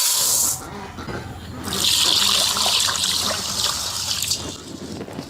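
Water poured over basmati rice as it is washed: a short splash at the start, then a longer pour from about two seconds in, lasting a couple of seconds.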